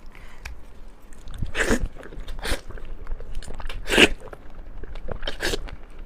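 Close-miked eating: a person biting into and chewing red-braised pork knuckle, with about five louder bites spaced roughly a second apart, the loudest about two thirds of the way through.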